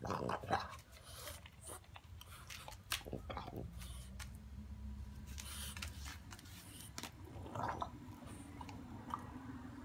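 A French bulldog puppy gnawing a pig trotter: irregular crunches and sharp clicks of teeth on bone and gristle, with short snuffling bursts, loudest in the first second. A low steady hum comes in about four seconds in.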